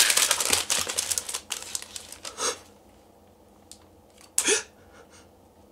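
Plastic gift packaging crackling and clicking as it is handled, a dense run of quick crinkles for about two and a half seconds. Then it goes quieter, with two short hissy bursts.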